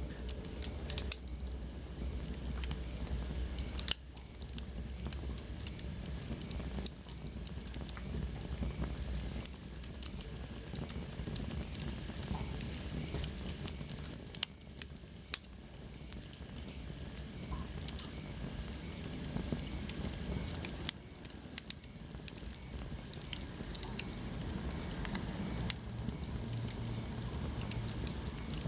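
Wood fire crackling in a fireplace: a steady low hiss of burning with sharp pops and snaps scattered irregularly throughout.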